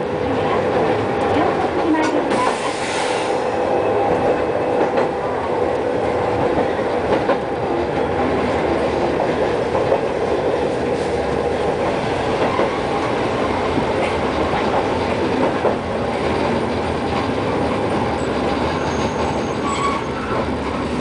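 Hankai Tramway streetcar running along street track, heard from inside the car: a steady whine over the rumble of wheels on rails, with a few clicks from the rails and a brief hiss about two to three seconds in.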